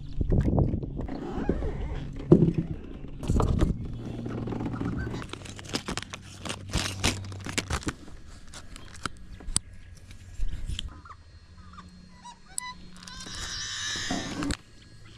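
Reed stems rustle and scrape against a kayak hull as it pushes into a reed bed, then fishing tackle is handled with a run of small clicks and taps. Near the end a plastic lure package crinkles.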